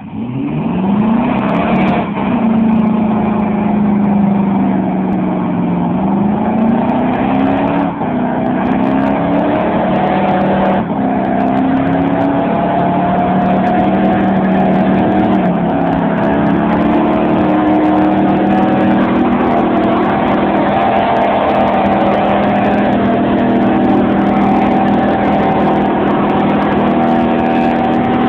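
Toyota van's engine revved up hard and held at high revs through a burnout, its rear tyres spinning on the tarmac. The revs climb sharply at the start, dip and rise again twice, then hold steady.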